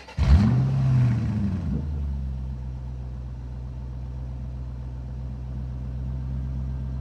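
An engine starts with a quick rev a fraction of a second in, its pitch sweeping up and back down, then settles into a steady idle.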